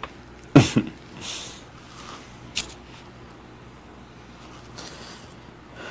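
A man gives a short, low laugh about half a second in, falling in pitch. Then there is quiet room tone with a few faint breaths and a small click.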